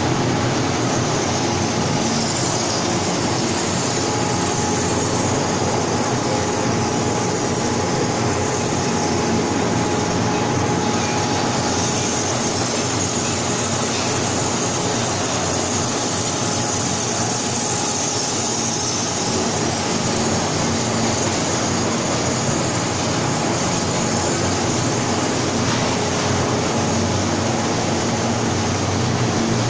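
Corn puffed ring roasting and processing machinery running with a steady, even noise and a constant hum.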